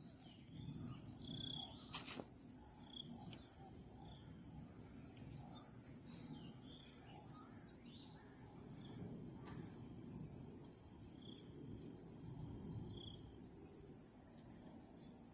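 Steady, shrill insect chorus that swells in about a second in and holds, with scattered faint chirps and a low steady rush underneath. A single sharp click about two seconds in.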